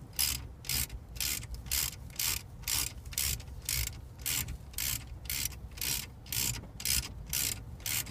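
Hand ratchet wrench worked back and forth, tightening a fastener on the steering wheel install: an even run of short ratcheting strokes, about two a second.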